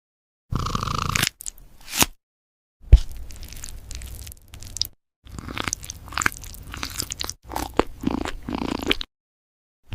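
A cat chewing and crunching food with sharp, crackly bites, in short stretches cut off by sudden silent gaps.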